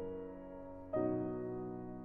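Piano playing the slow introduction to an art song: held chords, the earlier one dying away and a new chord struck about a second in.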